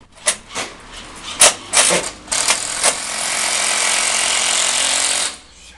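Power tool fastening wooden furring strips to an exterior wall: a series of sharp knocks, then a steady run of about three seconds that cuts off suddenly near the end.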